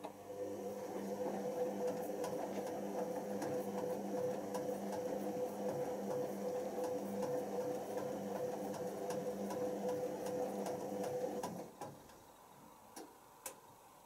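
Hoover Optima OPH714D washing machine's drum motor turning the drum in a wash tumble: a steady whine that starts at once, runs for about eleven and a half seconds and stops, as the drum pauses between tumbles. Two faint clicks come near the end.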